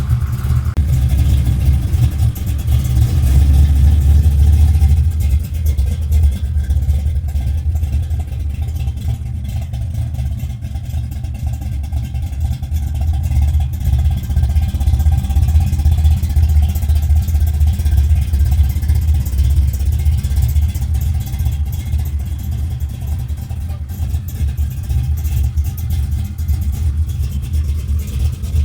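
The 800-horsepower engine of a 1970 Chevelle running with a deep, steady sound, a little louder a few seconds in.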